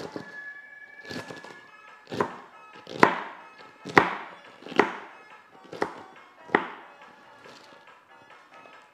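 Knife chopping through cabbage onto a cutting board: about seven sharp chops, roughly one a second, stopping about two seconds before the end.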